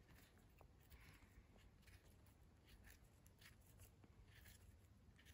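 Near silence, with faint, brief scrapes of a small knife blade paring soil off the stem of a freshly picked bolete mushroom.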